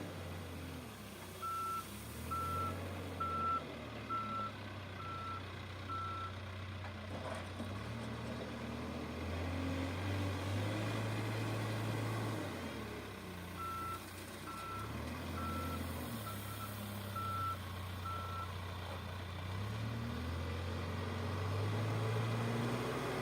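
Backhoe loader's reversing alarm beeping about once a second, in two runs of six beeps, over its diesel engine running, with the engine speed rising and falling as the machine works.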